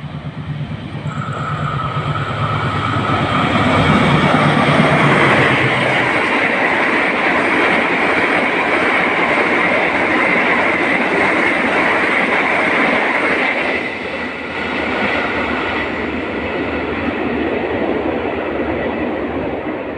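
A diesel locomotive passes, its engine running, at the head of a train of stainless-steel passenger coaches. Once it has gone by, the coaches roll past in a loud, steady rush of wheels on rail with a high ringing edge.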